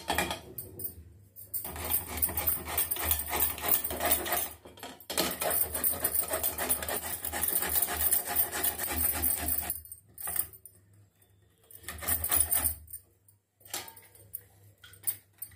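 Metal grater scraping and rattling against a steel bowl of water as grated elephant foot yam is rubbed off it by hand. The clatter runs steadily for about ten seconds, then comes in a few short bursts with pauses near the end.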